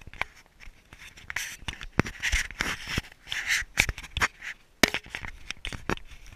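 Handling noise on a tumbling camera: a quick run of knocks, clicks and scraping rustles against the camera housing, with no motor running.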